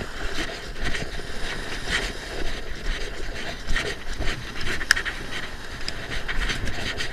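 A man breathing hard after fighting a fish, with footsteps and light surf washing behind, and a few sharp clicks.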